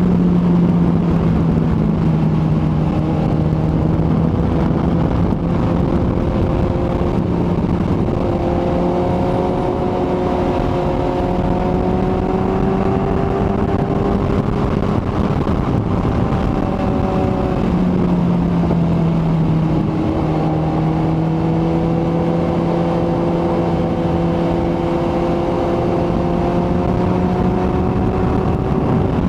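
Kawasaki ZX-14R motorcycle's inline-four engine running at a steady cruise, its pitch drifting slowly up and down, over a constant rushing noise.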